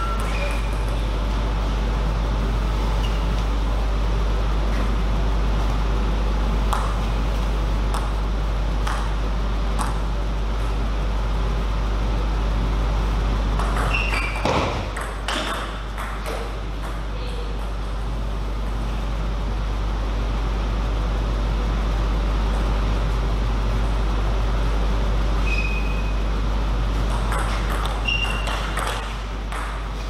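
Celluloid-style table tennis ball clicking and pinging off the table and rackets in a few short rallies, each hit a sharp click, some with a brief high ring. A steady low hum runs underneath throughout and is the loudest thing.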